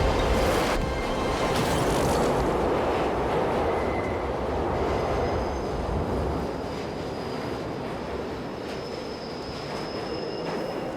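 Subway train running along the track, with a steady rumble and a thin, high wheel squeal; it fades slowly over the last few seconds.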